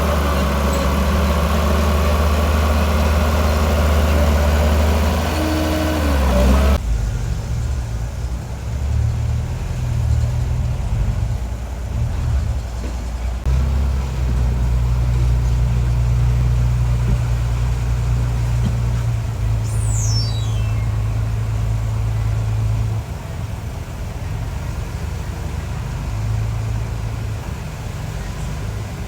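Heavy diesel engine of earthmoving machinery running. About seven seconds in the sound changes abruptly to a lower, steadier engine drone.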